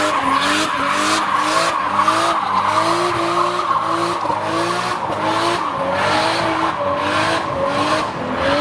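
Car engine held at high revs, its pitch rising and falling about twice a second as the tyres spin, with a steady screech of tyre squeal over it.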